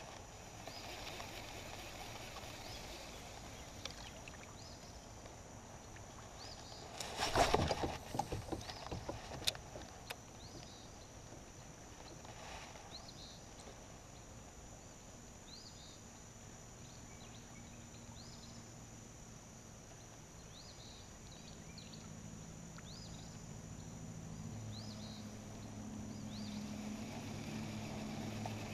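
Quiet river ambience with faint, brief bird chirps throughout. A short burst of clattering knocks comes about seven seconds in, and a low steady hum builds toward the end.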